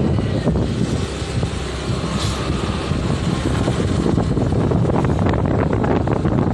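Wind buffeting the microphone of a moving motor scooter, a steady low rumble with the scooter's engine and road noise underneath.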